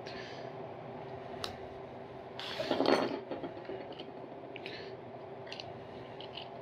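Metal tools and chain being handled: scattered light metallic clinks and clicks, with one louder rattling scrape about two and a half seconds in, over a steady low hum.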